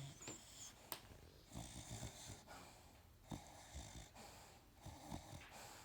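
Faint snoring: slow, noisy breaths about every second and a half, with one sharp click about a second in.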